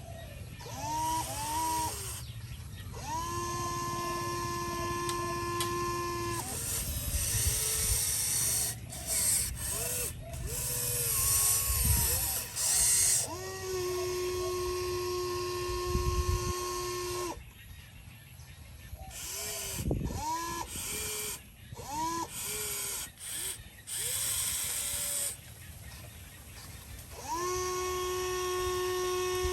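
A machine whine in repeated spells: it rises quickly to a steady pitch and holds for three to four seconds, three times, with short swooping tones and a steady hiss between.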